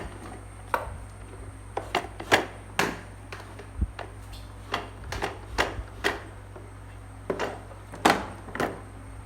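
Irregular sharp clicks and knocks of hard plastic parts on a freshly assembled push ride-on toy being handled, about fifteen in all, some in quick pairs.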